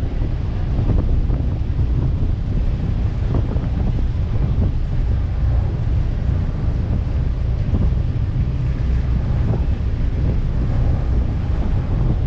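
Strong wind buffeting the microphone on a moving ferry, a steady loud low rumble with the rush of the sea mixed in.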